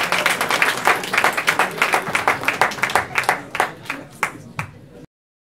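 Audience applauding, the clapping thinning out and fading until the sound cuts off abruptly about five seconds in.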